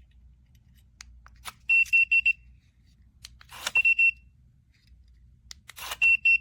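CARMTEK TripDefender RV keyless door lock's keypad beeping: three groups of three or four quick, high-pitched beeps, about two seconds apart, each group just after some clicks.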